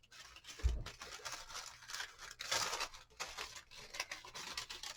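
Paper crinkling and rustling as it is handled, in irregular bursts, with a soft thump about a second in.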